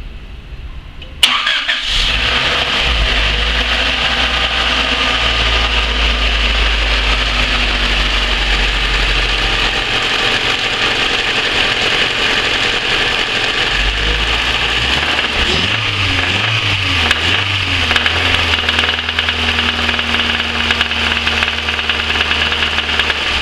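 Honda Civic's B16A 1.6-litre DOHC VTEC four-cylinder engine starting about a second in, then running at idle, its speed shifting a few times, with a strange noise that the owner suspects may be a spun rod bearing.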